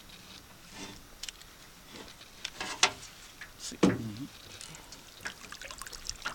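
Water splashing and dripping as a landing net holding a large peacock bass is worked and lifted at the side of a boat, with scattered short clicks and knocks. A brief voice-like sound comes about four seconds in.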